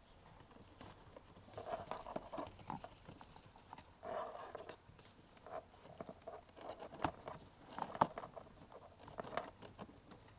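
Hands working plastic parts under the dashboard: irregular light clicks, taps and scraping as the cabin air filter cartridge is fitted back into its housing.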